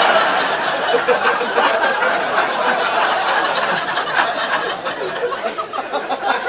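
Comedy club audience laughing at a punchline, a dense crowd laugh that is loudest at the start and slowly dies down.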